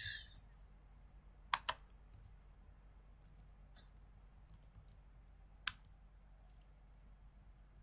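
Computer keyboard keys being typed: a few scattered, irregular keystroke clicks with pauses between them, over a faint steady low hum.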